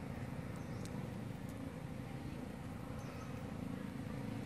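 Outdoor ambience: a steady low rumble with a few faint, short high chirps and light ticks.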